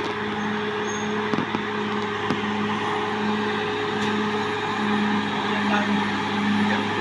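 Caterpillar D6R XL bulldozer's diesel engine running steadily under work, a constant low drone with a faint regular swell in its hum.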